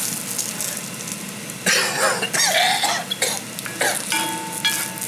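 Serrano peppers sizzling in hot oil in a cast-iron wok while a wooden spoon stirs them. A person coughs several times, loudest from a little under two seconds in.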